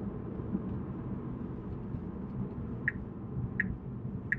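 Steady low road and tyre rumble inside the cabin of a moving Tesla Model 3, an electric car with no engine note. Three light ticks come evenly spaced, about 0.7 s apart, in the last second and a half.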